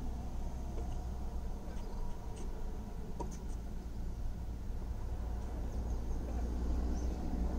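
Steady low rumble of a car idling, heard from inside its cabin, with a few faint distant taps of tennis balls struck by rackets a couple of seconds in.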